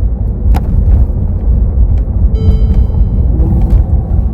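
Steady low rumble of a car driving, heard from inside the cabin, with a couple of sharp clicks and a short pitched tone about two and a half seconds in.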